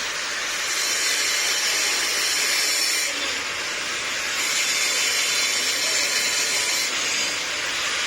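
Electric arc welding on a pipe: the arc gives a steady, noisy hiss with no break. Its top end dulls about three seconds in, returns a second and a half later, and dulls again near the end.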